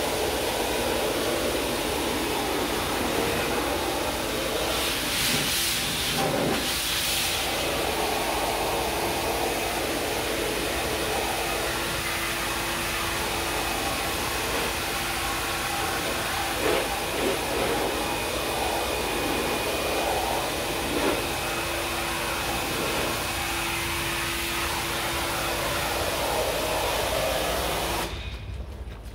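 High-pressure washer spraying water through an air conditioner's indoor unit to flush out the dirt: a steady hiss of the jet that cuts off near the end.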